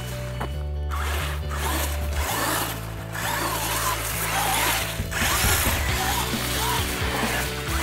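Electric RC monster truck's motor whining as it drives, its pitch rising and falling with the throttle. Background music with held bass notes that change in steps plays underneath.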